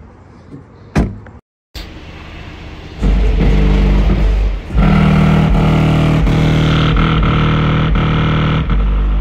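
A thump about a second in. From about three seconds in, loud bass-heavy music plays through two 10-inch Kicker CVR subwoofers powered by an 800-watt Kicker amp, heard from outside the car's closed trunk.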